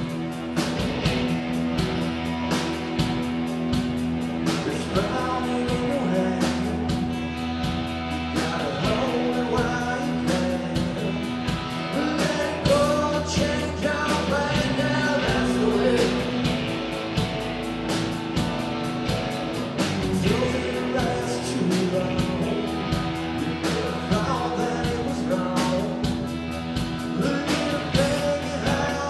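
Rock band playing live: electric guitars over a steady drum-kit beat, with a voice singing.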